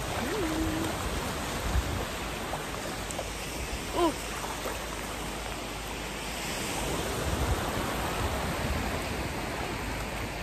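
Steady rushing and splashing of sea water around someone wading into the cold water, with a short vocal cry about four seconds in.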